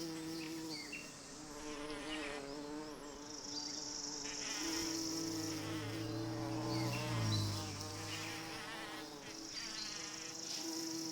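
Bees buzzing: several overlapping drones at different pitches that waver and shift, with a high hiss that fades in and out and a lower hum that swells briefly in the middle.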